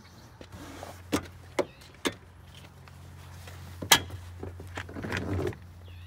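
Sharp metallic clicks and knocks from a van's removable rear seat and its floor anchors being handled, the loudest about four seconds in, then a short scraping rustle, over a steady low hum.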